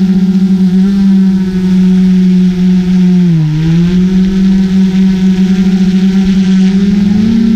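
GoPro Karma quadcopter's motors and propellers humming steadily, close to the drone's own camera. The pitch dips briefly about halfway through as the motors slow, then climbs a little near the end.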